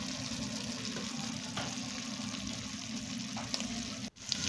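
Pork pieces browning in a little oil in a stainless steel pot: a steady frying sizzle with a few small pops. It cuts out for a moment near the end.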